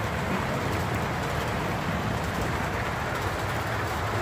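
Steady low rumble and hum of model trains running on a layout.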